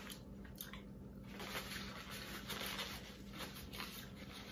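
Soft rustling of a paper towel being rubbed between the fingers as hands are wiped clean, a faint papery hiss that starts about a second in and fades near the end.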